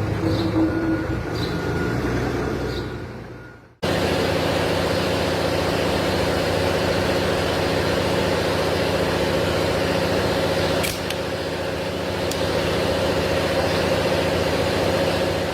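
An engine or similar machine running steadily at a constant speed. The sound breaks off suddenly about four seconds in and the same steady drone starts again at once.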